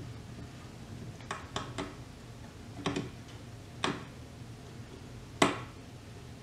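Six short sharp cracks and clicks from a wooden corner joint held by two pocket-hole screws as a clamp loads it down onto a bathroom scale. The loudest comes about five seconds in. They are the wood flexing and the joint beginning to separate at around 108 pounds of force.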